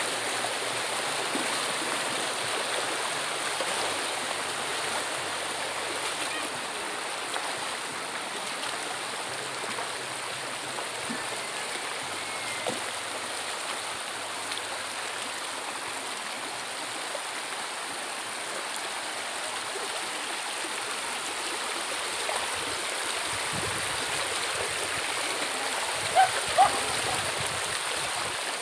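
Shallow river running over stones, a steady rushing of water, with two short sharp sounds about three-quarters of the way through.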